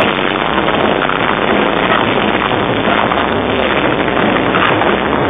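Loud, distorted din of a dance floor at a rave, party music and crowd noise overloading a phone microphone into a dense, steady roar.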